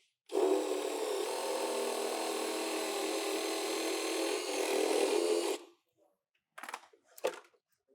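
Electric drill running steadily for about five seconds, drilling out a plastic weld on the door card's door handle mount, then stopping. A couple of short knocks follow near the end.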